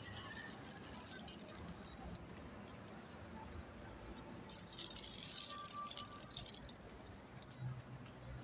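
Toy crane truck's small wheels rattling and scraping as it is rolled by hand over rough concrete and up a rubber ramp, loudest for about two seconds near the middle.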